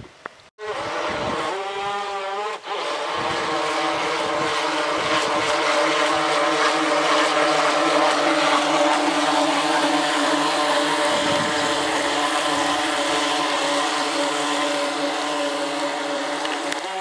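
Radio-controlled model boat's motor whining at high speed, with water hiss from the hull. It starts abruptly just after the start and rises in pitch as the boat accelerates about a second in, then holds steady.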